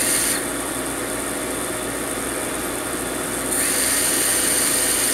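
The King Kong GT 110 quadcopter's small brushless motors run steadily, spinning three-blade props at low throttle. The sound gets a little louder and brighter about three and a half seconds in. The motors are not running at matching speeds, which the owner blames on a defective motor or speed controller.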